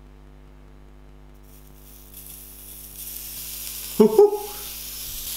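Bacon sizzling between the hot plates of a hair straightener, the hiss starting about a second and a half in and growing louder, over a steady low hum. A man gives a short exclamation about four seconds in.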